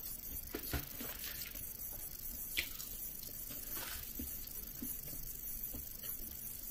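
Faint rustling and small clicks of things being handled on a table, with one sharper click about two and a half seconds in.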